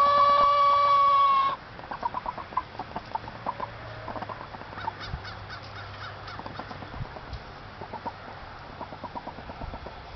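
A rooster's long, steady-pitched call, unusual for a rooster, breaks off abruptly about a second and a half in. It is followed by a run of short, quieter clucks.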